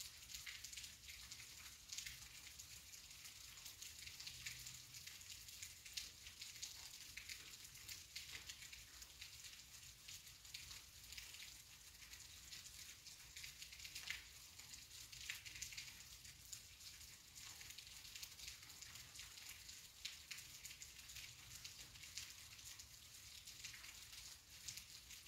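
Faint, steady rain falling: an even hiss of many small drops, with scattered single drops ticking irregularly.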